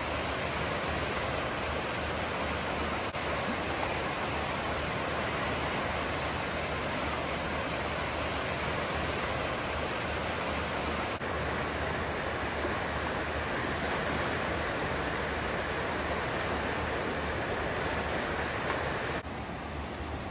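Fast, swollen floodwater rushing down a river channel: a steady, even rush of water. It drops a little quieter near the end.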